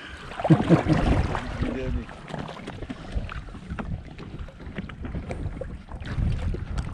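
Wind buffeting the microphone over the wash of the sea, with scattered small knocks. A brief voice is heard in the first two seconds.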